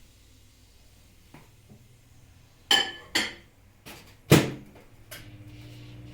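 Dishes knocked together: two quick ringing clinks, then a single louder knock about a second later. A low steady hum comes in near the end.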